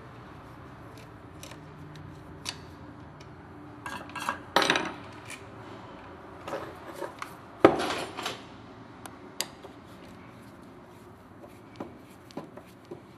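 Metal hand tools and parts clinking and clattering against the metal housing of a disassembled electric wet sander and the workbench: scattered light clicks, with two louder clatters about four and a half and seven and a half seconds in.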